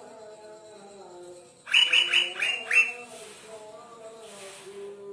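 Asian fairy-bluebird (cucak biru) calling: a quick run of about six sharp notes, each sliding downward, about two seconds in. A fainter, lower wavering sound runs underneath.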